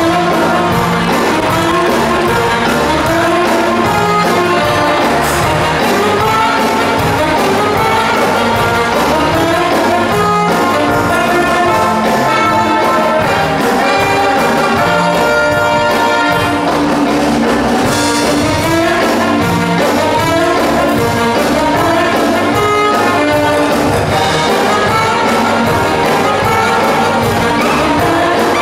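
Brass-led band music playing loudly with a steady beat.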